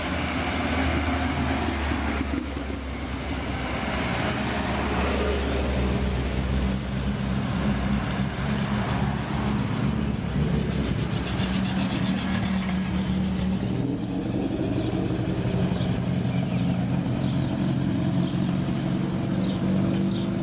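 Classic cars driving slowly past one after another, their engines running with a steady low hum. The deepest part of the hum drops away a little after halfway.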